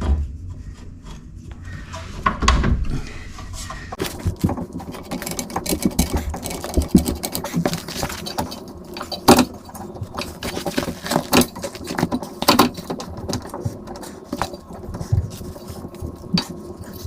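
Irregular metallic clicks, clanks and knocks of hand tools and suspension parts being worked, while a coilover strut is lined up with the rear spindle and control arm. A faint steady hum joins in about four seconds in.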